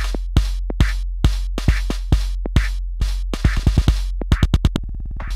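Live trance/techno played on a Korg Electribe Sampler and Volca Keys: a drum-machine beat of kick drums and noisy hits over a constant deep bass. Near the end the hits quicken into a fast roll, break briefly to a buzzing tone, and the beat drops back in.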